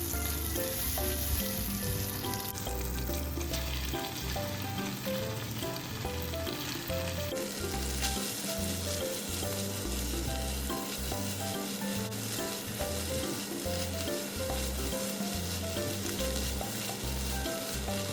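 Food sizzling as it fries in a frying pan, a steady sizzle that changes abruptly about two and a half and seven and a half seconds in, with background music over it.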